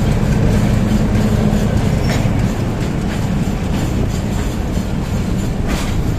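Train running on the rails: a steady loud rumble of wheels and cars, with a few sharp clicks of the wheels over rail joints, one about two seconds in and one near the end.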